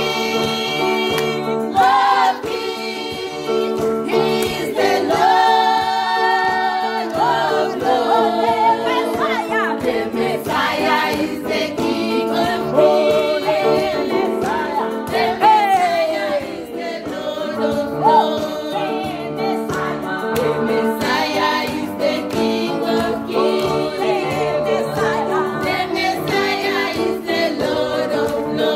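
A gospel praise song: voices singing over an instrumental accompaniment of held chords.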